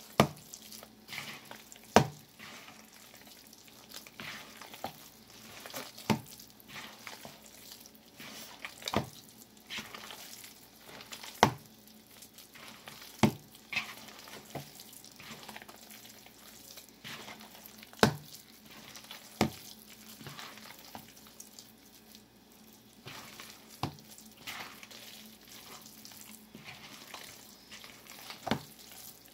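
Gloved hands kneading and squeezing raw ground-beef meatloaf mixture in a bowl: wet squelching with sharp smacks every two seconds or so.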